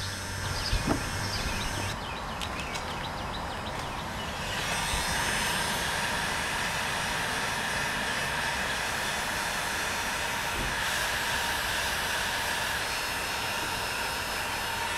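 Birds chirping during the first two seconds. From about four seconds in, a steady rushing mechanical drone carrying a faint held high tone takes over.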